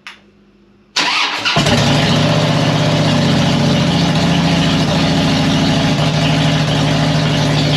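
Harley-Davidson Dyna's air-cooled V-twin being started: the electric starter cranks briefly about a second in, the engine catches almost at once and settles into a loud, steady idle. It is running on what fuel remains on one side of the tank, with the two halves not yet connected.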